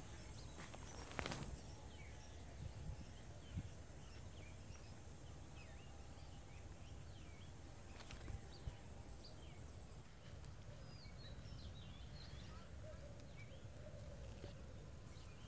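Faint outdoor ambience of small birds chirping, many short chirps scattered throughout, over a low steady rumble, with a few soft knocks.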